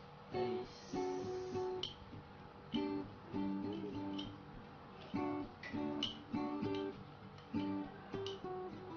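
Background music: a guitar strumming chords, a new chord about every half to one second.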